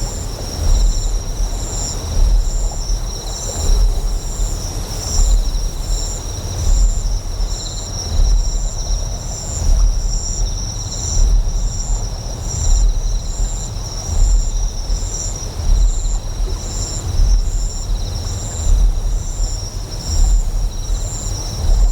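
Deep, resonant generator hum that swells in a slow pulse about every second and a half, layered with insects chirping in a steady, even rhythm and a faint natural hiss.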